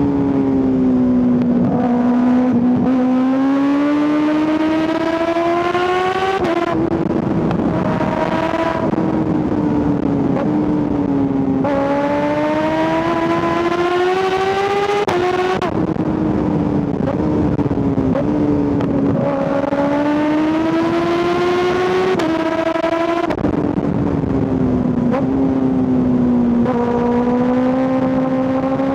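2025 Kawasaki ZX-6R's 636 cc inline-four engine and exhaust under hard riding, the revs climbing for a few seconds at a time and then breaking off sharply as gears change, about five or six times, over steady wind noise.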